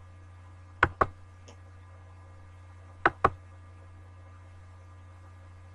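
Computer mouse button clicked twice, about two seconds apart, each click a quick press-and-release pair, paging forward through a document. A steady low electrical hum runs underneath.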